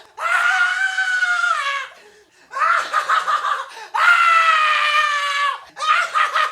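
A person screaming in long, high-pitched wails: three loud held cries that each sag in pitch at the end, with shorter, broken cries between them.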